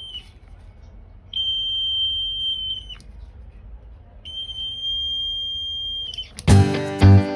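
Electronic buzzer sounding a steady high-pitched tone in long beeps. The tail of one beep ends right at the start, then two more follow, each lasting about one and a half to two seconds with pauses between. Strummed guitar music starts near the end.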